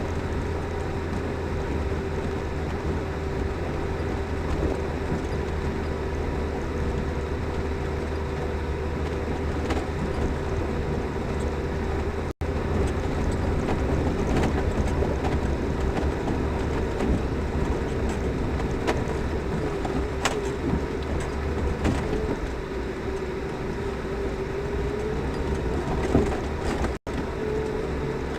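Lada Niva driving on a rough forest track: a steady engine and drivetrain drone with a constant whine, and occasional knocks and clicks from the bumps. The sound cuts out for an instant twice, about 12 seconds in and near the end.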